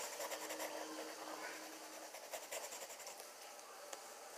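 Pencil lead scratching on lined notebook paper in quick, short back-and-forth strokes as a drawing is shaded, fading off toward the end.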